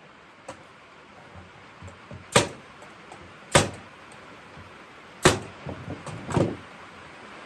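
Oak rocking chair parts being knocked together at a tight-fitting joint: about four sharp knocks spaced a second or more apart, with a few lighter taps between.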